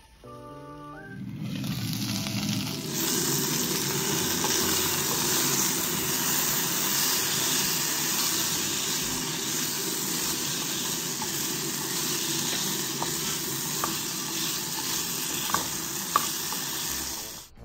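Diced potatoes frying in coconut oil in a pot, sizzling steadily as a spatula stirs them. The sizzle builds over the first couple of seconds and then holds. A couple of sharp clicks of the spatula on the pan come near the end.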